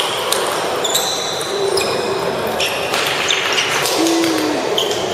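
Table tennis balls clicking off paddles and tables in quick, irregular hits, from several tables in play, with sneakers squeaking briefly on the hardwood gym floor, echoing in the large hall.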